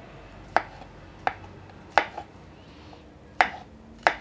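Kitchen knife slicing button mushrooms on a wooden cutting board: five sharp knocks of the blade against the board at uneven intervals, roughly one a second.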